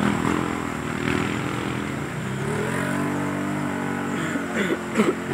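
A 4x4 off-road vehicle's engine revving hard under load as it wades through deep mud and water; the revs climb about halfway through, hold, then drop back near the end.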